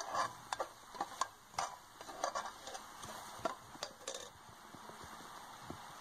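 Perforated steel skimmer scraping and knocking against a steel pot while frying onions and spice paste are stirred, with a light sizzle of hot oil under it. The scraping stops about four seconds in, leaving only the sizzle.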